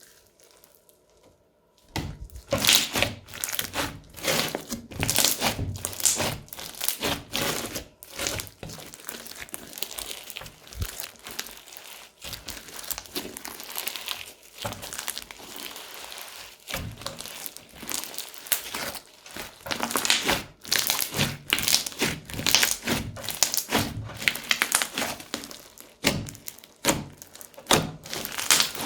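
Crunchy slime packed with beads and foam bricks being squeezed and pressed by hand: dense crackling and sharp clicking pops in irregular runs, starting about two seconds in.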